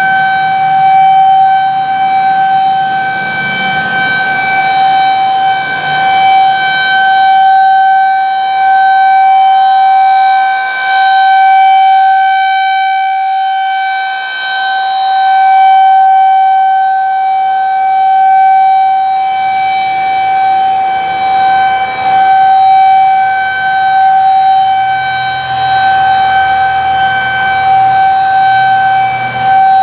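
Federal Signal 2001-SRN rotating outdoor warning siren sounding a steady tone at one constant pitch in a test. The sound swells and fades every few seconds as the rotating horn sweeps around.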